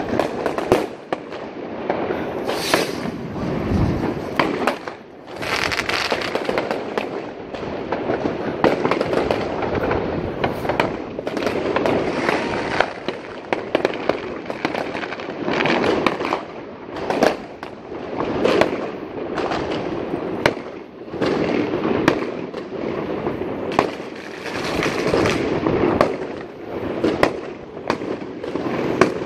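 Many consumer fireworks going off at once: rockets and aerial shells bursting overhead in a steady barrage of bangs and crackles, with no break.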